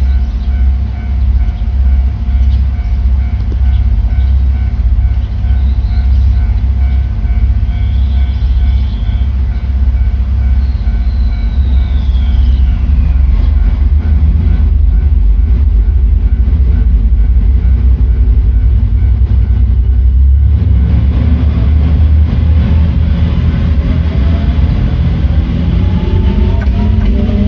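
A train running through the level crossing: a loud, steady low rumble of wheels on the rails, with a rising whine in the last several seconds.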